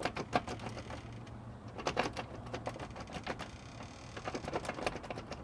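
A homemade lock pick raking the pins of a door lock while a tension wrench holds the cylinder: a fast, irregular run of small metallic clicks and rattles.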